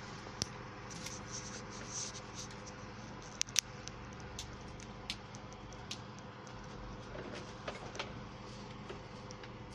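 Scattered small snaps and rustles as leaves and thorns are stripped from white rose stems, with two sharper clicks about three and a half seconds in, over a steady hum.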